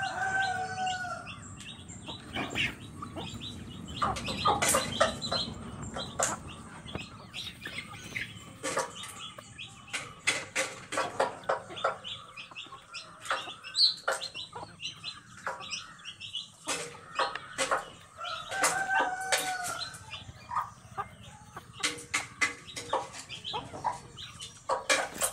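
A flock of chickens with chicks, clucking and chirping in many short calls while they feed, with a longer drawn-out hen call at the start and again about three-quarters of the way through.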